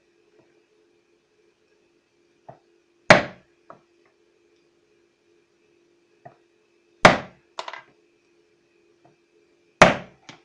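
Small hammer striking a centre punch on an aluminium bracket laid on a wooden block, marking hole centres before drilling: three sharp metallic hits a few seconds apart, the second and third each followed by a lighter tap.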